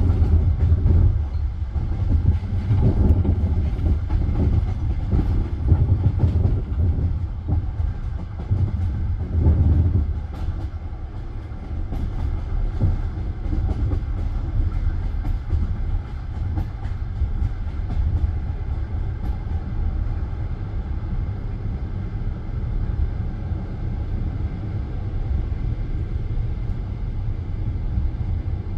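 Passenger train rolling along, heard from inside a carriage: the wheels rumble and knock over the rail joints. The knocking is heavier for about the first ten seconds, then settles into a steadier rumble.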